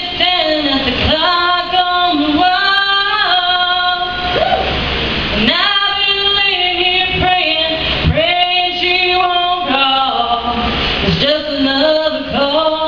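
A woman singing solo and unaccompanied, a cappella, with long held notes sliding between pitches, in phrases with short breaks for breath.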